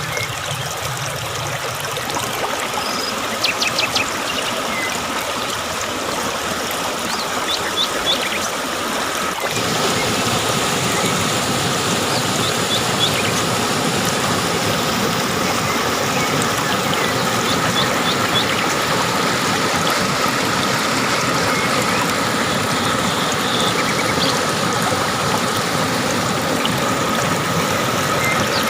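Waterfall rushing steadily, growing louder about ten seconds in, with a few faint high clicks now and then.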